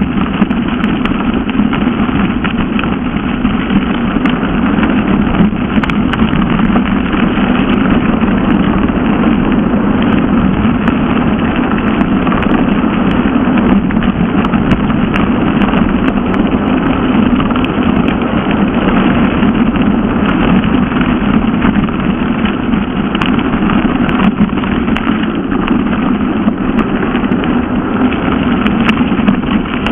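Mountain bike rolling fast down a gravel forest track: a steady rush of tyre and wind noise on the camera, with frequent small clicks and rattles.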